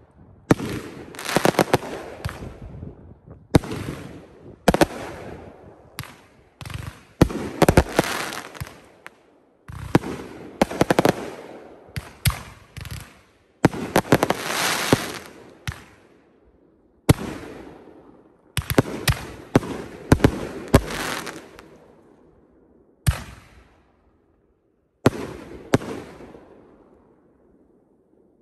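6-inch canister firework shells bursting in the sky one after another: a long run of sharp reports, each trailing off, some in quick doubles and clusters, with longer pauses between bursts near the end.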